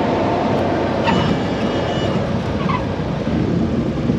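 Steady drone of a light single-engine Cessna's piston engine and propeller, heard inside the cabin. A faint high tone sounds briefly about a second in.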